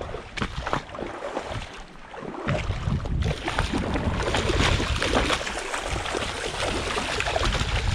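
Flowing stream water rushing steadily, with wind buffeting the microphone in uneven low gusts.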